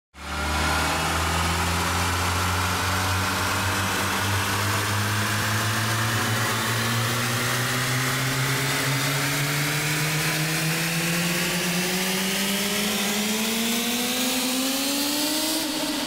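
Cinematic riser sound effect: a dense layered tone with a hiss over it, climbing steadily in pitch for about fifteen seconds at an even level, then cutting off just before the end and fading out.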